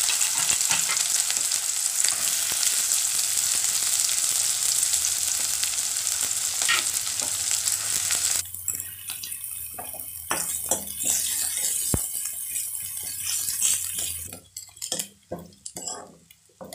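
Chopped onions frying in hot ghee in a kadhai, stirred with a steel spoon. A loud, even sizzle for the first half cuts off suddenly, leaving the spoon scraping and clicking against the pan.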